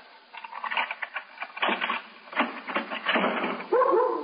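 Radio-drama sound effects: a key rattling and turning in a lock and a door opening against its security chain, a quick series of clicks and knocks, then a dog starts barking about three and a half seconds in.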